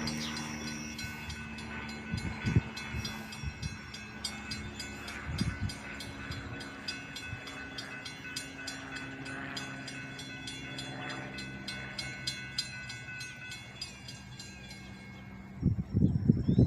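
Grade-crossing warning bell ringing in rapid, even strokes while an approaching Norfolk Southern locomotive's horn holds a long steady chord. The horn stops near the end, and a loud low rumble of the arriving train begins.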